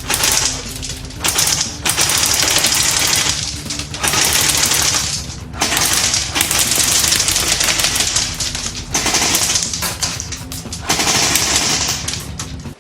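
Airsoft Steyr AUG rifle firing long full-auto bursts, about five in a row with short pauses between, over background music.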